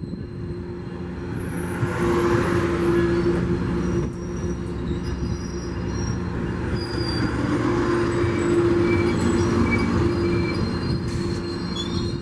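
Metrolink bilevel passenger coaches rolling past at close range: a steady rumble of wheels on rail, with thin high-pitched wheel squeals that come and go over it.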